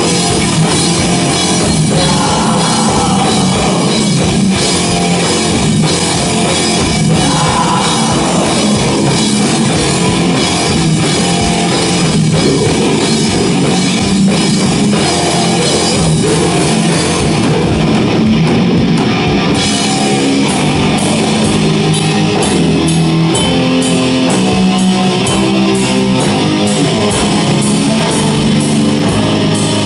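Heavy metal band playing live at full volume: distorted electric guitars over a pounding drum kit, loud and unbroken.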